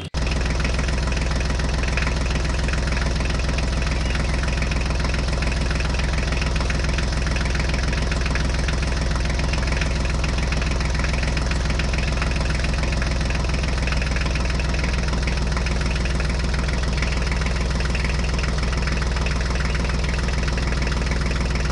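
Tractor engine sound effect: an engine running with a steady low chugging at an even pace and unchanging level. It starts suddenly.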